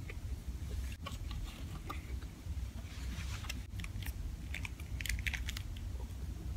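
Closed-mouth chewing of fried food. From about three seconds in, a small plastic ketchup packet crinkles and crackles between the fingers. A steady low hum runs underneath.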